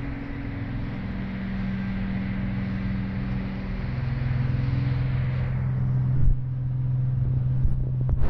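A motor engine drones steadily nearby, its pitch shifting lower and its level rising slightly about halfway through.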